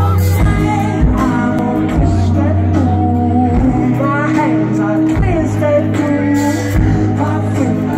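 Live indie rock band playing, with a singer's melody over a steady bass line and drums.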